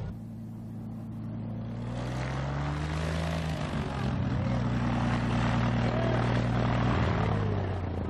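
A light single-engine propeller plane's engine running with a steady note. It rises slightly in pitch and grows louder over the first few seconds, then holds.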